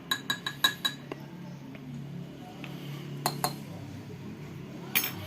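A metal spoon clinking against a drinking glass, each tap ringing briefly: five quick taps in the first second, two more about three seconds in, and one near the end. This is spoonfuls of ground cinnamon being tapped into a glass of hot water.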